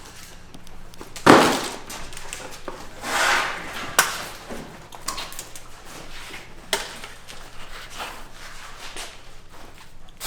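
Handling noise from taking apart a dirt bike's protective shipping rack: a loud scrape or clank about a second in, a longer scraping rustle a few seconds later, then scattered knocks and clicks.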